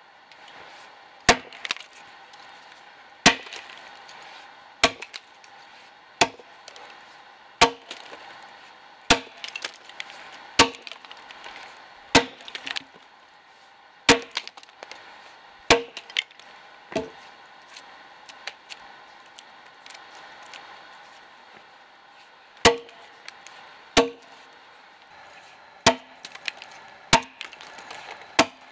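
Axe blows chopping into the side of a dead ash log, one sharp woody strike about every one and a half to two seconds, some followed by a small crack of splitting wood, with a pause of several seconds after the middle.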